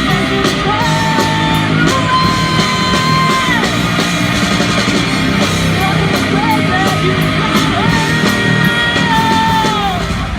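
Rock music with a singer holding long notes that slide down at their ends, twice, over a full band with guitar.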